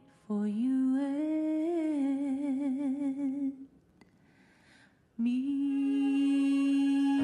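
A woman singing solo without accompaniment into a microphone: a phrase with vibrato that rises and falls, a pause of about a second and a half, then one long held note from about five seconds in.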